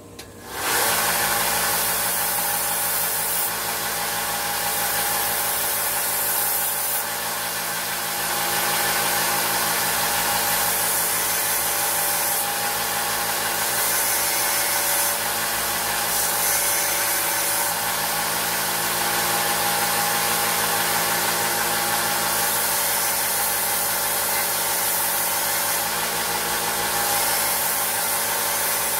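Electric belt sander switched on about half a second in, then running steadily as it sands rust off a steel pocket-knife blade.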